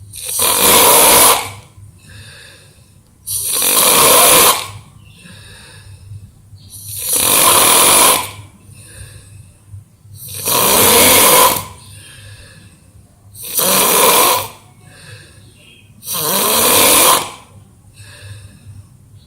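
A person snoring in deep sleep: six loud snores about every three seconds, with quieter breaths between them.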